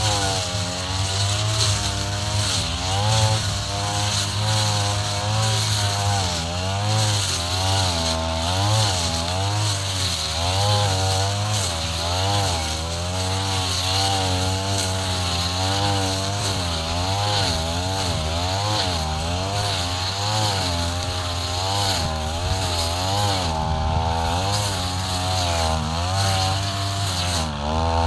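Two-stroke brush cutter running hard while cutting tall grass, its engine pitch repeatedly dipping and rising again every second or two.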